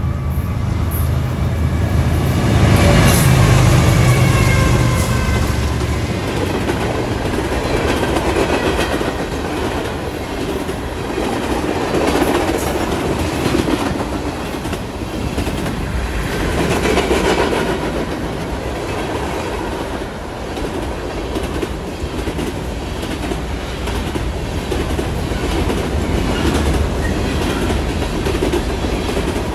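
Fast BNSF freight train passing up close. The diesel locomotives go by loudest a few seconds in, then a long string of tank cars and covered hoppers rolls past with the steady clatter of wheels over the rail joints.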